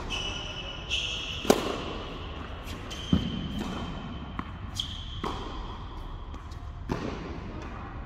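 A tennis ball bounced on a hard court in a large indoor hall, four sharp bounces about one and a half to two seconds apart.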